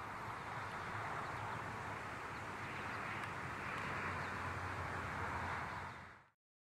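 Steady outdoor background rush, even and without distinct events, fading out about six seconds in.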